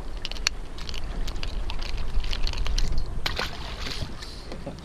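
Water splashing and sloshing against the boat's side as a hand-lined reef fish is hauled up out of the sea, with scattered sharp splashes and drips. Wind rumbles on the microphone underneath.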